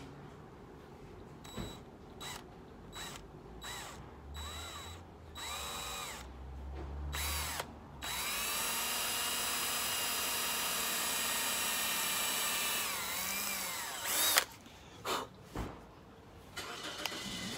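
Cordless drill pre-drilling small pilot holes in a painted sculpted baseball. First a series of short trigger pulls, each speeding up and slowing down, then one steady run of about six seconds, and a few more short bursts near the end.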